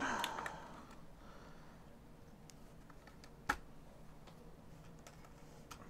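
Light handling noises as a digital kitchen scale and folding knives are moved about on a rubber mat: a soft rustle at the start, faint small ticks, and one sharp knock about three and a half seconds in.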